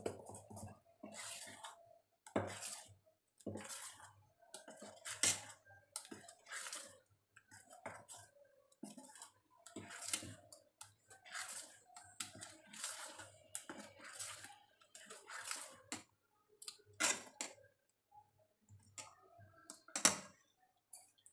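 Metal spoon stirring thick paniyaram batter in a stainless steel bowl, scraping and clinking against the bowl's sides in an uneven run of strokes, roughly one or two a second.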